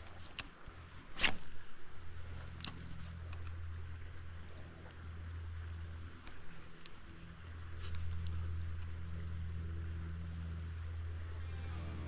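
Insects, likely cicadas or katydids, droning steadily on one high tone, over a low steady hum. A few sharp clicks come in the first three seconds.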